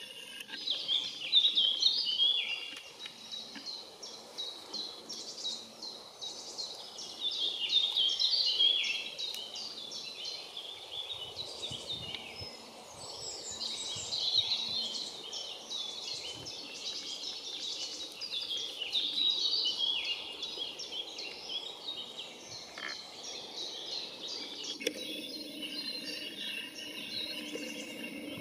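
A songbird singing in the tree canopy: a bright phrase of rapid high notes about two seconds long, repeated every five or six seconds over a faint chatter of other birds. Near the end a steadier rushing background comes in.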